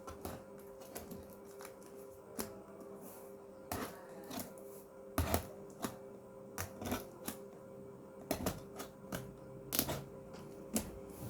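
A shipping parcel being opened by hand: irregular clicks, taps and crackles of packaging being pulled and torn, at uneven intervals.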